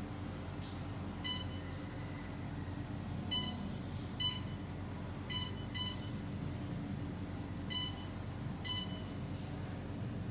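Short electronic beeps, seven of them at irregular intervals, like an electronic device's beeper answering button presses, over a steady low hum.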